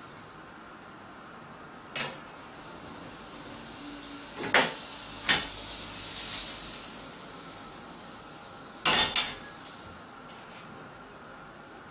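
Butter sizzling in a hot frying pan as the pan is tilted to spread it. The hiss swells for several seconds and then fades. The pan knocks against the gas burner's grate about two seconds in, twice in the middle, and several times in quick succession near the end.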